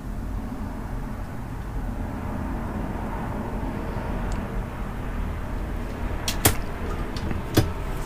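Steady low background rumble, with a few sharp clicks near the end, the two loudest about a second apart, as the solder spool and tools are handled and set down on the workbench.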